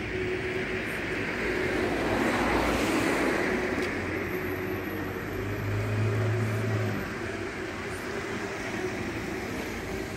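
City street traffic: a vehicle swells past about two to three seconds in, and a deeper engine sound rises and fades around six seconds in.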